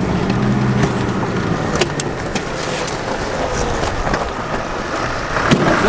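An old four-wheel-drive's engine running at low speed as it crawls over loose rocks, tyres crunching on stones, with a few sharp knocks a little under two seconds in, heard from inside the cab.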